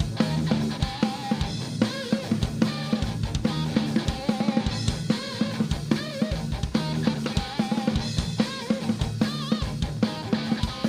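Live rock band playing an instrumental passage: drum kit with bass drum and snare driving a steady beat under sustained bass and a wavering lead melody line.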